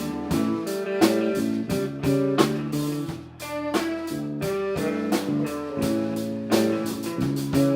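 Live band playing an instrumental groove: guitar over a drum kit keeping a steady beat, with no singing.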